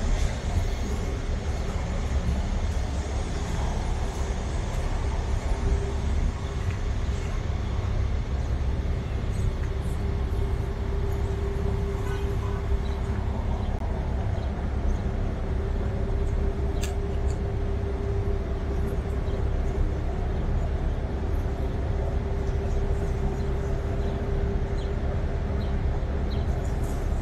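Steady low rumble of city vehicle noise, with a constant droning hum running under it and a few faint clicks.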